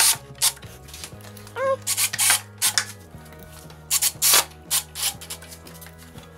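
Background music with a steady low bass line, over a run of short knocks and scrapes from oak ladder rungs being handled and fitted against the side rail.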